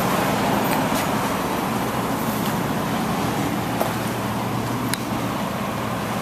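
Steady road traffic and vehicle noise, with a few faint clicks.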